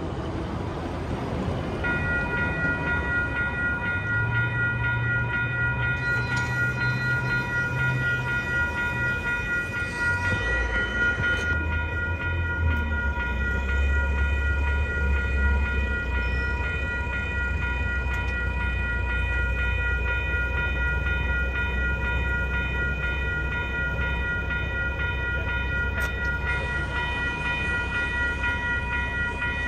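Railroad grade-crossing warning bell starts ringing about two seconds in and keeps ringing steadily, the crossing signals activated for an approaching train. A low steady rumble comes up under it about ten seconds in.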